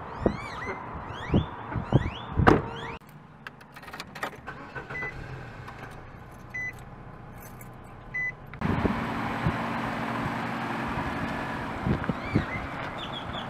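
Car door handled and knocked shut while birds chirp, then a quieter stretch with three short beeps. About two-thirds of the way in, the Nissan sedan's engine comes on suddenly and runs at a steady idle.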